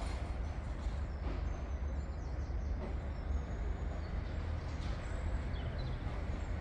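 Open-air background noise: a steady low rumble with a few faint high bird chirps.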